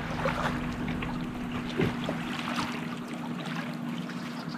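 Muddy floodwater sloshing and splashing against the roadside as the wave from a car crossing the flooded road washes past, over the steady hum of the car's engine. The low rumble thins out over the last second or so.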